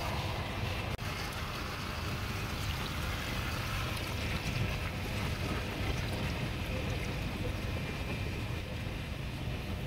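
Water poured from above into a hot wok of chicken curry: a steady watery rush and hiss over a low rumble.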